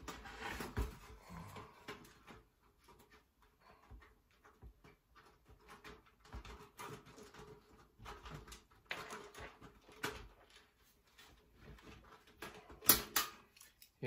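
Scattered clicks, light knocks and scraping from hands working inside a Panasonic toaster oven's sheet-metal chassis to free the burned-out bottom heater tube. The loudest is a pair of sharp clicks near the end.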